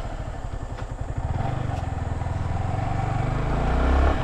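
Motorcycle engine running at low revs, its firing pulses steady, growing louder toward the end.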